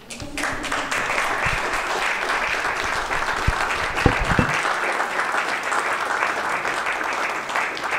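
Audience applauding: steady, dense clapping that starts just after the start, with a few low knocks near the middle.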